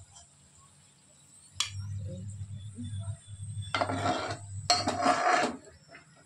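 A steel slotted spatula scrapes and clinks against a coated kadai while fried onions are lifted out of the oil. There is a sharp clink about one and a half seconds in, then two scrapes near four and five seconds.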